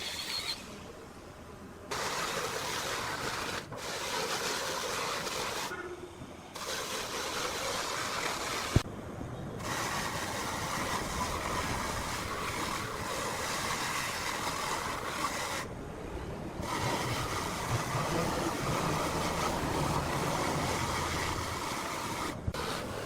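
Woodworking machinery running with a steady rushing noise, broken by several short quiet gaps where the footage is cut, and a sharp click about nine seconds in.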